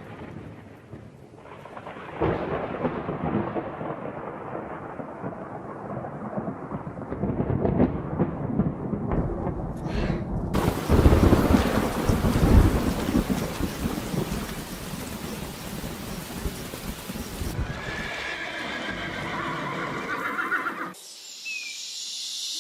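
Horse whinnies over a steady rushing, rumbling noise, with the sound changing abruptly several times where clips are joined.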